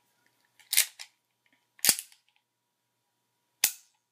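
Black Ops Colt 1911 CO2 airsoft pistol firing three shots: sharp pops, the first two about a second apart and the third nearly two seconds later, with a small click just after the first.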